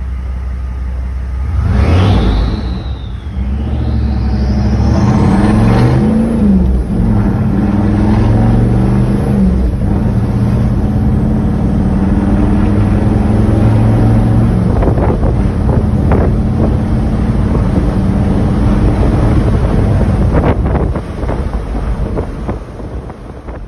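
6.5 turbo diesel V8 heard from inside the pickup's cab while driving. It accelerates about two seconds in, with a high whistle that dips and rises, then pulls steadily at road speed.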